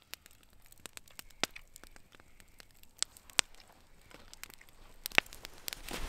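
Campfire crackling, with scattered sharp pops, a few of them louder. A rustling noise builds near the end.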